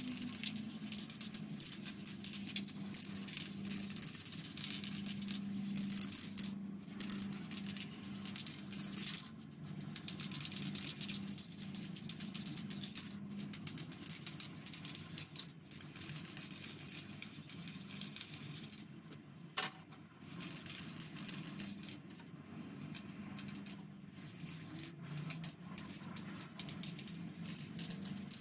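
Small plastic model kit parts being handled on a work surface, with irregular clicking, tapping and rattling over a faint steady low hum.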